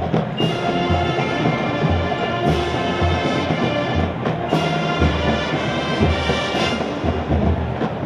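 Marching band playing: massed brass chords over a pulse of bass drum hits.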